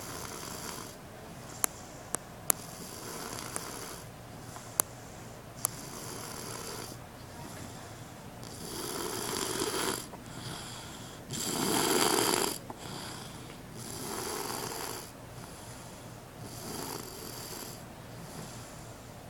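A three-year-old child snoring softly in his sleep, one snore with each breath every two to three seconds, the loudest about twelve seconds in. A few sharp clicks fall in the first six seconds.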